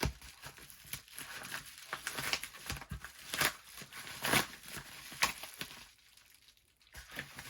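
Packaging being handled and unwrapped: irregular rustles and crackles, with a short pause about six seconds in.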